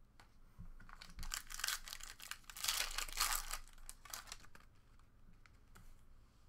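A foil trading-card pack being torn open and its wrapper crinkled, a dense crackling that peaks about three seconds in and dies away after about four and a half seconds.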